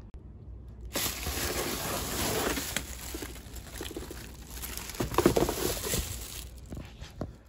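Clear plastic wrapping crinkling and rustling as a box fan is handled and pulled out of its cardboard box. It starts about a second in, is loudest around five seconds in, and dies away near the end.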